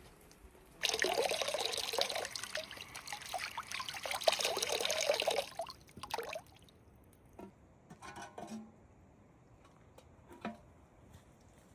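Water pouring for about five seconds, followed by a brief splash and a few light knocks.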